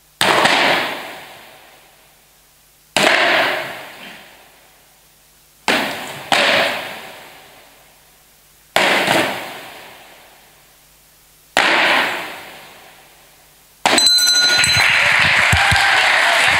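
Cardboard signs slapping onto a wooden stage floor one after another, about every three seconds and once two almost together, each slap echoing and dying away over a couple of seconds in the hall. About fourteen seconds in, audience applause breaks out and continues.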